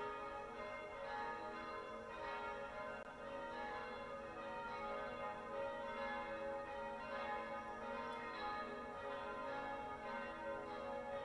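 Church bells ringing together, many tones at different pitches overlapping and sustained, with fresh strikes every second or two.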